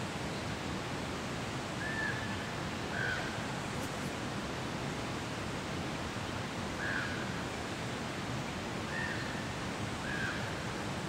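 Steady rushing background noise, with a bird giving short chirps five times, every second or few.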